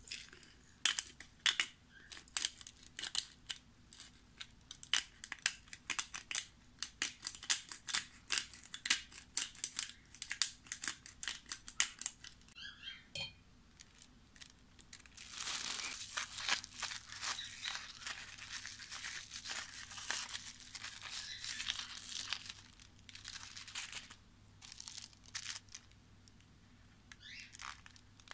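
Thin plastic bag crinkling and rustling as it is handled and filled with mayonnaise, in many short crackles, with a denser stretch of rustling in the middle. Scissors snip the bag's corner near the end.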